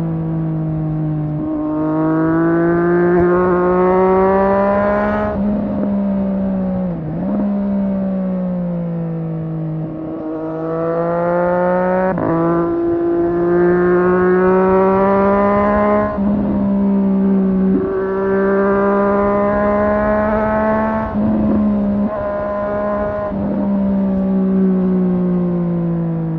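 The 765 cc inline three-cylinder engine of a Triumph Street Triple 765 R pulls through the gears. Its note climbs under throttle and drops sharply at each shift, several times over. It also falls away twice when the throttle is closed, and eases down near the end.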